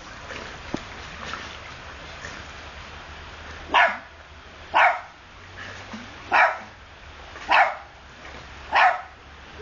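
Dog barking five times, single sharp barks about a second or so apart, starting a few seconds in.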